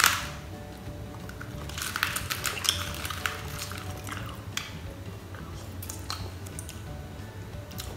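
A person chewing and crunching crisp food close to the microphone, with a run of sharp crunches about two to three seconds in.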